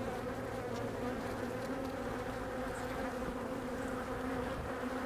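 Many honey bees buzzing around an opened hive, a steady dense hum with no breaks. The colony is agitated and defensive: the bees are giving off alarm pheromone and flying into the beekeeper.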